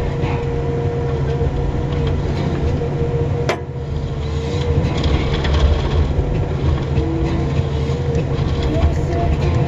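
Komatsu 911 forestry harvester's engine and hydraulics running steadily, a low drone with a steady whine over it, and a sharp click about three and a half seconds in.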